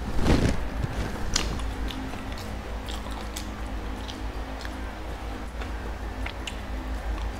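Close-miked eating: a person biting and chewing chicken teriyaki with rice, with scattered sharp mouth clicks and smacks. A louder burst of noise comes about half a second in.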